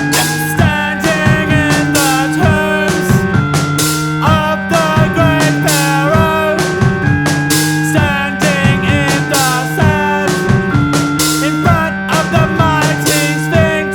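Background music: a rock instrumental with drum kit, bass and a gliding, bending lead line over a steady beat.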